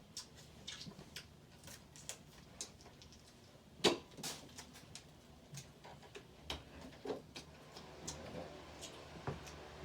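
Close-up eating sounds of a seafood boil of crab legs and shrimp: irregular sharp clicks and smacks, with one louder click about four seconds in.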